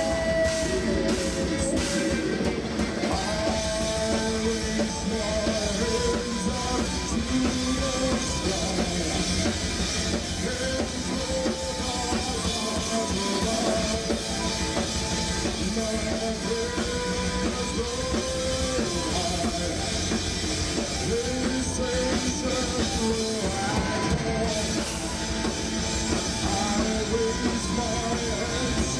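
Live metal band playing a song: distorted guitars and a drum kit, with a wavering melodic lead line over the top.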